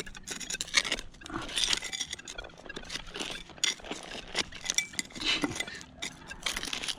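A digging tool scraping and chinking into stony ground: a quick, irregular run of scrapes and clinks of metal against rocks as a stubborn target is dug.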